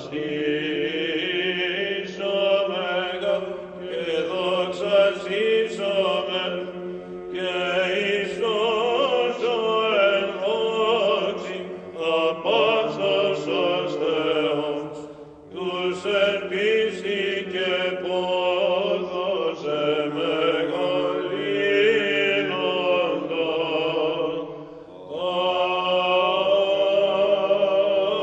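Male choir singing Byzantine chant in Greek: a melody sung over a steady held drone (the ison), in long phrases with short breaks about 7, 15 and 25 seconds in.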